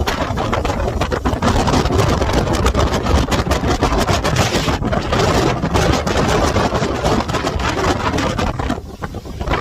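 Loud wind buffeting the microphone over a running boat motor, with a brief dip in level near the end.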